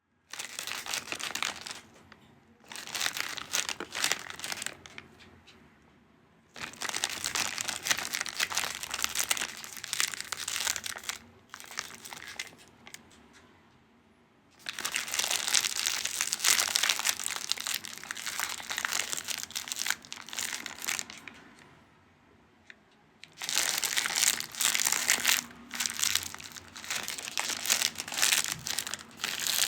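Foil chips packet being crinkled and crumpled, in several bursts of crackling a few seconds long with short pauses between them.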